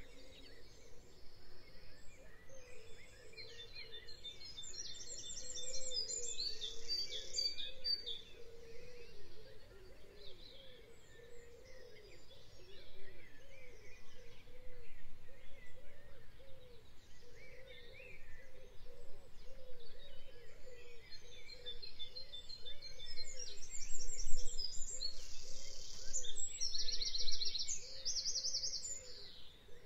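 Birds chirping and trilling against steady outdoor background noise, with quick runs of high, fast-repeating chirps in two busier stretches, one early and one near the end.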